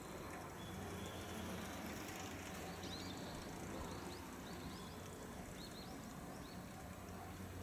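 Quiet outdoor ambience over a faint, steady low hum, with a small bird chirping in short high notes several times from about two and a half seconds in.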